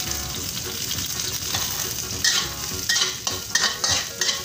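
Garlic, chili and sliced shiitake mushrooms sizzling in hot oil in a wok, with a spatula scraping and stirring them in a run of quick strokes from about a second and a half in.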